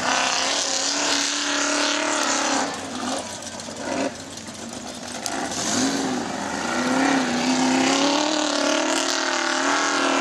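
Formula Offroad buggy's engine revving hard as it climbs a steep sand hill, the revs wavering up and down. It falls off about three seconds in and builds again from about six seconds.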